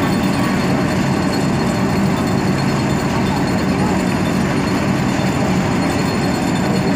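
Heavy kingpost pile-installation machinery running steadily: a continuous low mechanical drone with a dense rattle, without separate hammer blows.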